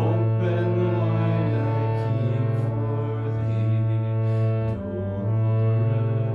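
Slow instrumental music: a steady low drone held under a slowly moving melody.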